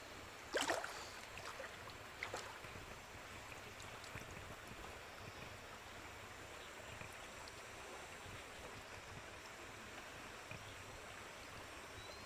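Water splashing and sloshing around a person wading waist-deep in a river, with a sharp splash about half a second in and a smaller one a couple of seconds in, then a faint steady wash of moving water.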